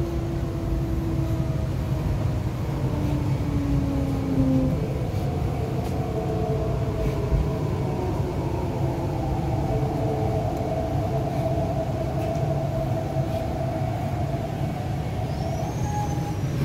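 MTR East Rail Line R-Train electric multiple unit braking along a station platform: the traction motor whine falls in pitch over the first few seconds over a steady running rumble, then settles into a steady hum as the train slows to a stop.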